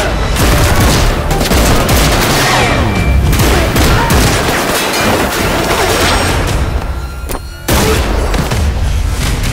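Rapid, dense movie gunfire sound effects over an action music score. The shooting drops away briefly about seven seconds in, then comes back suddenly and loud.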